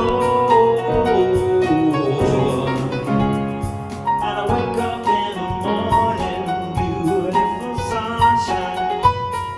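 Piano music built up from layered loops, several piano parts playing together over a light, steady beat.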